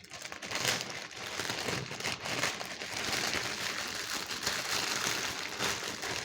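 Takeout food wrapping crinkling and rustling as it is handled close to the microphone, a continuous crackle of many small ticks.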